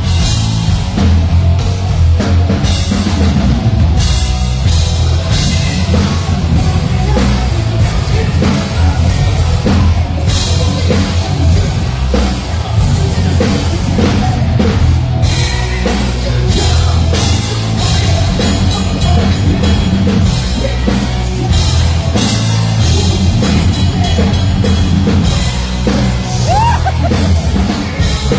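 Hard rock band playing live at full volume: a driving drum kit, distorted electric guitars and bass guitar, loud and continuous.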